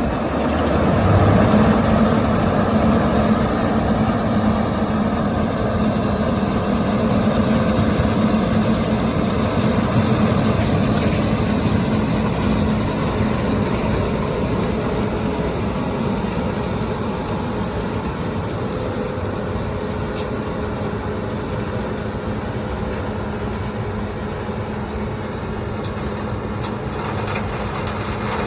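Combine harvester running steadily under load while picking corn with an Olimac Drago corn head: a continuous hum of engine and threshing machinery, swelling about a second in and then holding steady.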